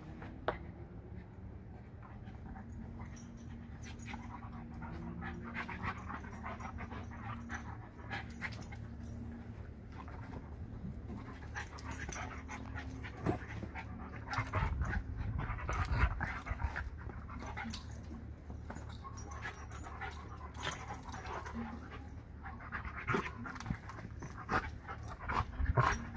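Two dogs play-wrestling, a large curly-coated dog and a small terrier, heard mainly as panting and snuffling with scuffling, with a few stronger bumps now and then.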